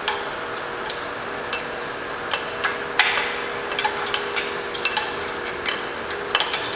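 Lifting chain of an engine hoist clinking and rattling as it is unhooked and repositioned on the hanging engine: a string of irregular sharp metallic clinks over a steady background hum.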